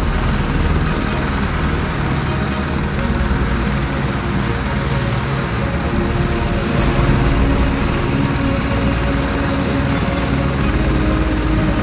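Airbus AS355 twin-engine helicopters running with their main rotors turning: a loud, steady rotor and turbine noise with a thin high whine over it.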